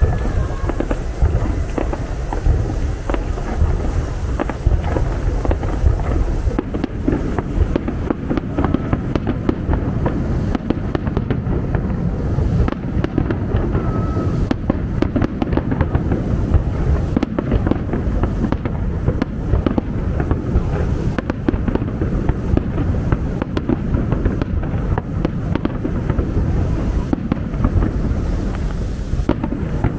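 Aerial fireworks display: a dense, continuous barrage of shell bursts and crackling bangs with no pause.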